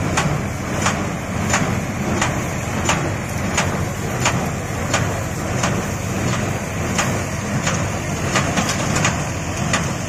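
Maschio Pitagora square baler running under a steady low mechanical drone, with a sharp knock repeating evenly about one and a half times a second as its plunger strokes, compressing the crop into bales.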